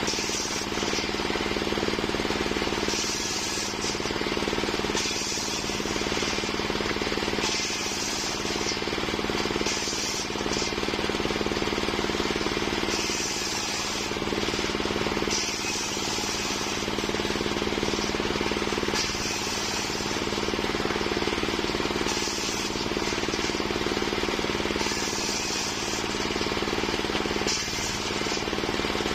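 Homemade circular sawmill running steadily under its motor, the blade cutting waru wood, with the sawing sound swelling and easing every second or two as the cut bites and lets up.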